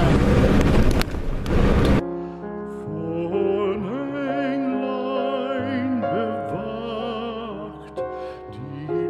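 Cab noise of a Renault Premium truck driving for about two seconds, then it cuts off abruptly and music takes over: a singing voice with a wavering vibrato over instrumental accompaniment.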